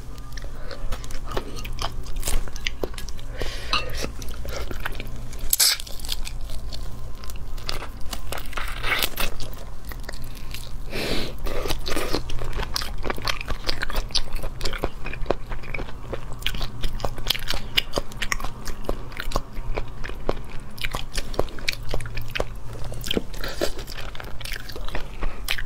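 Eating raw drunken shrimp: shells crackling as fingers peel them, with biting and chewing of the shrimp. It comes as a dense, continuous run of small crunches and clicks.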